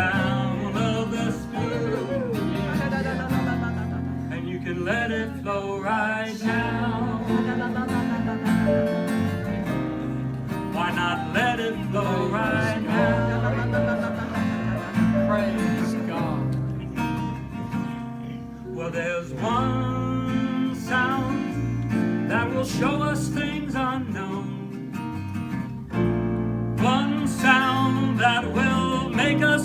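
Live music: a strummed acoustic guitar with a voice singing over it.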